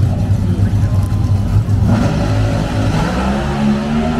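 Drag-racing car engine running with a deep rumble, its pitch rising steadily from about three seconds in as it revs up.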